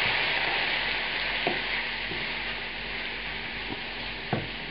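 Diced carrot, celery and onion sizzling in hot oil in a skillet, stirred with a wooden spatula. The sizzle slowly dies down, and the spatula knocks against the pan twice, once about a second and a half in and once near the end.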